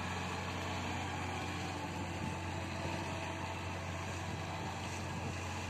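Steady engine drone with a constant low hum and an even hiss of water and wind over it.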